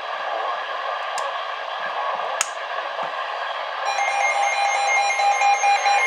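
NOAA Weather Radio receiver hissing with static and a few sharp clicks, then about four seconds in the buzzing digital SAME header burst of an Emergency Alert System alert starts, rapidly switching tones that mark the start of a new alert.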